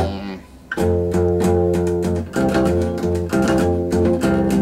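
Acoustic guitar strummed in a steady rhythm. It comes back in after a brief pause, about a second in.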